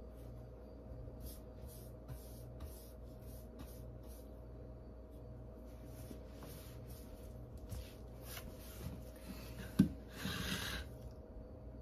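Angled paintbrush stroking paint onto a wall, a soft scratchy brushing repeated two or three times a second, over a steady low hum. Near the end a sharp tap, then a short rustle as the phone on the floor is handled.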